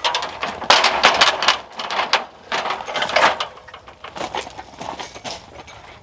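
Rapid, dense clattering and knocking, busiest in the first three seconds and thinning out after that.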